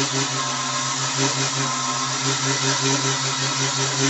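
Mini wood lathe with a small 12–24 V motor (up to 150 W) running, spinning a wooden workpiece while a hand chisel cuts it. A steady motor hum that pulses evenly about five times a second, over a hiss from the cut.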